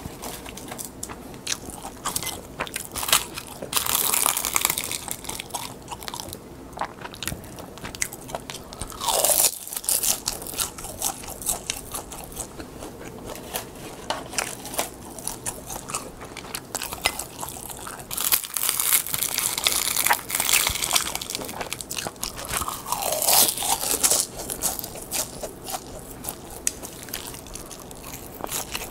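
Close-miked chewing and crunching of crisp seasoned laver (gim). There is a steady patter of small crackles, with several louder stretches of crunching.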